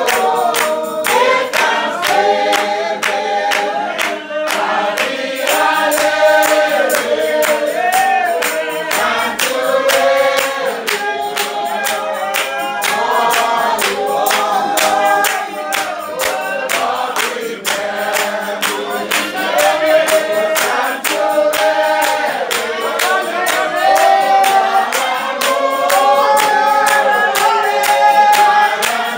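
A Spiritual Baptist congregation singing a hymn together, many voices in unison, with steady hand-clapping in time.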